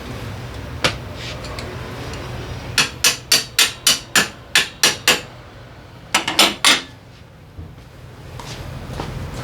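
Hammer blows: a single strike, then a quick run of about nine at roughly four a second, then three more close together, over a steady low hum.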